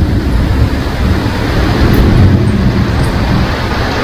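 Heavy rain pouring steadily, a dense rushing noise with a strong deep rumble underneath.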